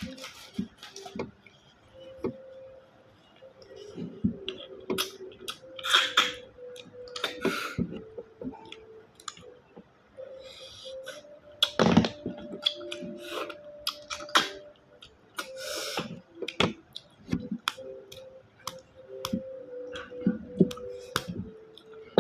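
Close-up eating sounds of bisukol snails in their shells being sucked out and eaten: irregular sharp slurps, shell clicks and chewing, with the loudest slurps about six and twelve seconds in.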